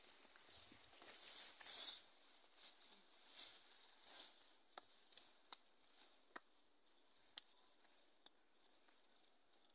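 Sweet potato vines and leaves rustling as they are pushed aside and pulled by hand, loudest about a second in, with a few light clicks later on.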